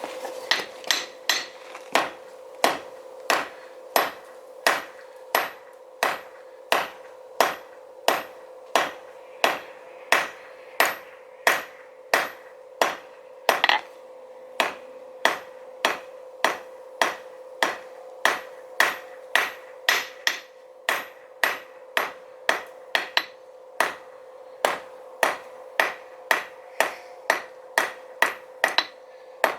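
Blacksmith's hand hammer striking steel on an anvil while forging a J hook, in a steady rhythm of a little under two blows a second, each blow with a short ring.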